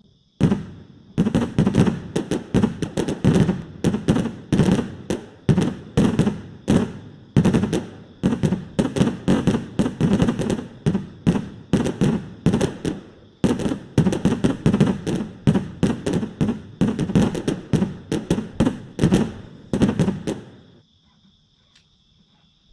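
O gauge model train's wheels clacking over the rail joints in a rapid, uneven run of sharp clicks. The clacking starts suddenly, goes on steadily, and stops abruptly near the end.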